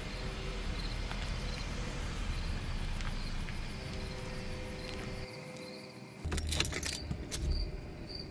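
Crickets chirping in a regular pulse over a low steady hum. About six seconds in comes a brief burst of jangling and clicking.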